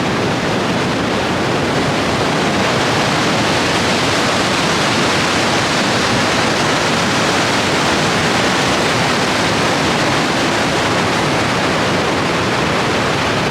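Steady, loud roar of Niagara Falls: falling water pouring into the gorge, an even rushing noise with no breaks.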